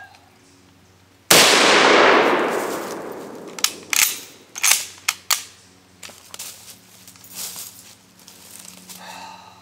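A single rifle shot about a second in, with a long echo that dies away over about two seconds. It is followed by a quick series of about five sharp metallic clicks.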